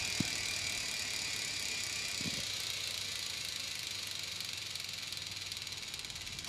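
Rear wheel spinning in third gear on a Shimano Nexus internal three-speed hub, its ratchet pawls giving a rapid continuous clicking that slowly fades as the wheel slows. This clicking is the normal sound of the hub's coasting ratchet, not a fault. Two small knocks come near the start and about two seconds in.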